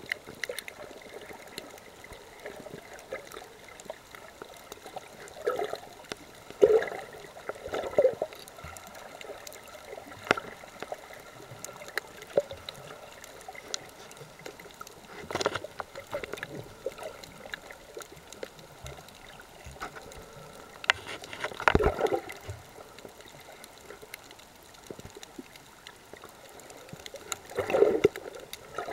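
Water heard by a camera held underwater: a faint steady hiss with scattered clicks, and gurgling, sloshing bursts every several seconds, the loudest a little past twenty seconds in.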